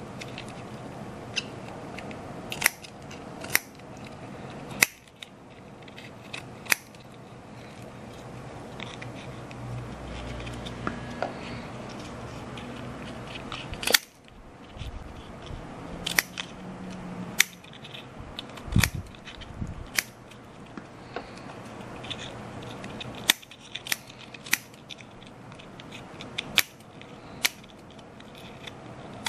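Scissors snipping as a part for a model ship's funnel is trimmed: a series of sharp, irregularly spaced clicks.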